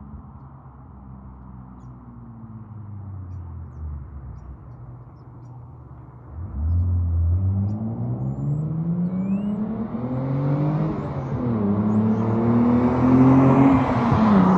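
Nissan 300ZX (Z32) V6 with a Specialty Z aftermarket exhaust, faint at first, then accelerating hard as it comes into hearing about six seconds in. Its pitch climbs, drops at one upshift, climbs again and falls off as the car passes close by near the end.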